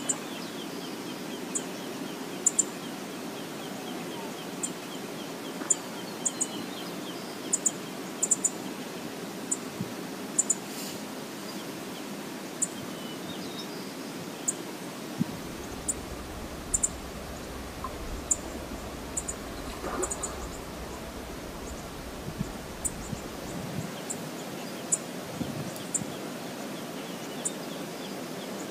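Steady rush of a shallow, riffled river flowing, with short, sharp high-pitched ticks scattered irregularly every second or two.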